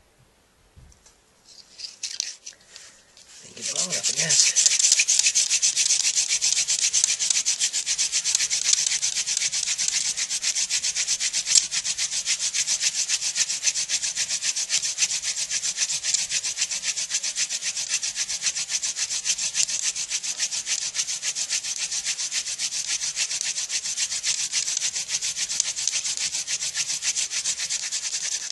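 Hand-drill friction fire: a short wooden spindle spun rapidly back and forth between the palms, grinding in a charred socket of a wooden hearth board to work up an ember. It gives a steady, dense, high rasping rub after a few tentative strokes, and it stops suddenly at the end.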